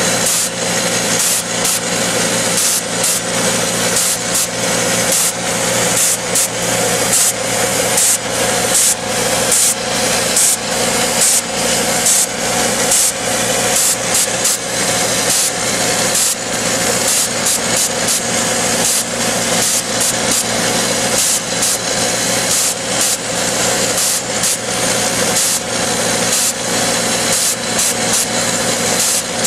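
Drillcom RD22 rock drill hammering steadily into bedrock, a rapid continuous stream of percussive blows, over the steady drone of the tractor's engine driving it.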